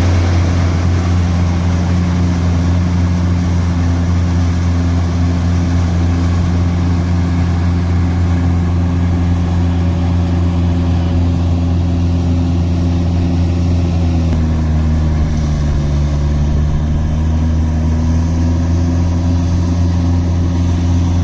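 Combine harvester engine running steadily under load. Its note dips a little about two-thirds of the way through, then recovers.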